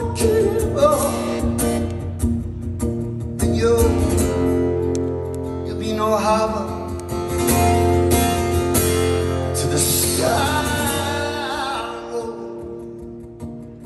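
A man singing over a strummed acoustic guitar, solo and live, with long held sung notes. Near the end, the guitar and voice die away and the sound fades.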